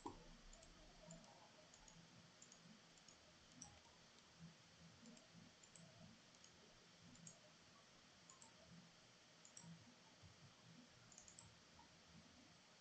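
Near silence: faint room tone with small, irregular computer mouse clicks scattered through it.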